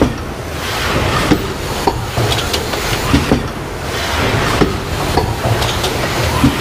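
SATE S700 rigid box making machine running, with a steady mechanical clatter of clacks and knocks in a cycle that repeats about every three seconds.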